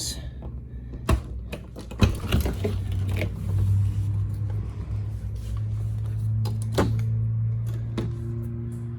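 Several sharp clicks and knocks of RV doors or cabinet latches being handled, with a steady low hum setting in about two seconds in.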